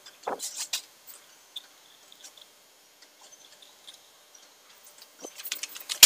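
Small metallic clicks and clinks of steel bolts and washers being fitted and threaded by hand into a limit switch box's mounting bracket on a pneumatic actuator. A short run of clicks comes near the start, faint ticks follow, and busier clinking of metal hardware builds up near the end.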